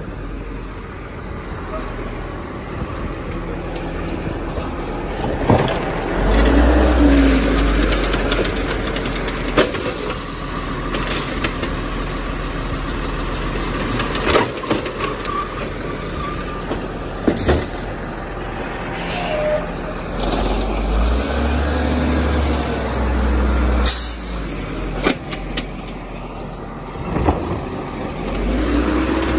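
Automated side-loader garbage truck working a cart pickup: the engine revs up to drive the hydraulic arm about six seconds in and again around twenty-one seconds, over a steady running engine. Air-brake hiss and a series of sharp clanks and bangs as the cart is lifted, shaken out over the hopper and set back down.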